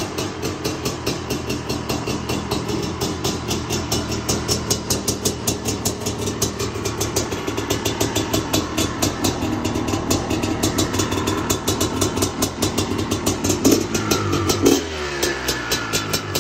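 Honda CR500 two-stroke single-cylinder engine idling steadily through its expansion-chamber exhaust, with a couple of quick throttle blips near the end.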